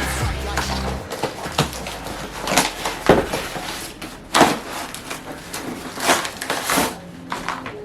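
Packaging being torn open and handled while a box of rubber bumper plates is unpacked: a run of irregular rustling and scraping noises, loudest about three and four and a half seconds in.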